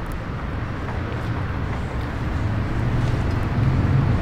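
Street traffic: a low, steady vehicle engine rumble that grows louder near the end.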